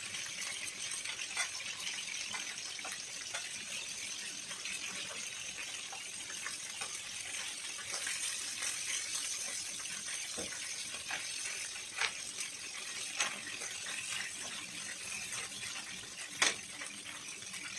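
Chicken pieces frying in hot olive oil in a pan, a steady sizzle. A few sharp clicks of metal tongs against the pan and bowl come through it, the loudest near the end.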